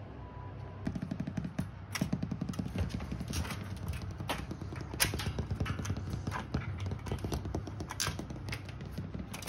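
Shiba Inu puppy scrabbling about a playpen: rapid clicking and tapping of its paws and claws on the floor starting about a second in, with a sharper knock now and then, over a low steady hum.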